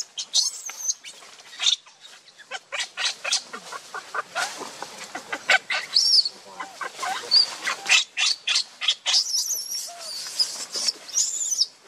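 Baby macaque giving short, high-pitched squeals while an adult macaque handles it, mixed with rustling of dry leaves as the two move on the ground.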